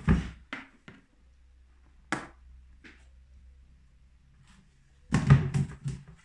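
Hard plastic fermenter bucket and its lid being handled: a few knocks at the start, a couple of single taps, then a quick run of hollow plastic thunks near the end as the lid is pulled off.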